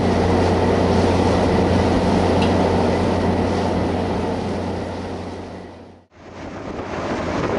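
Ferry's engine running with a steady low drone under the rush of its wake and wind across the deck. The sound fades out about six seconds in and comes back up.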